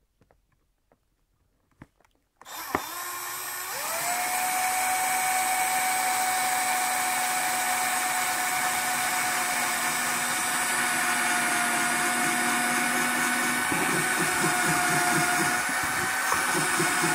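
Cordless drill starting about two seconds in and winding up to a steady whine as it drills a pilot hole through a plastic GoPro-style flat base mount into wood. A rough rattling joins the whine for the last few seconds.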